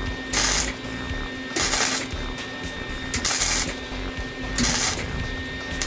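MIG welder laying short tack welds on the rusted, cracked steel frame spar of a 1967 VW Bus: four bursts of arc noise, each about half a second, about a second and a half apart. The tacks reinforce the cracked section before it is cut and straightened.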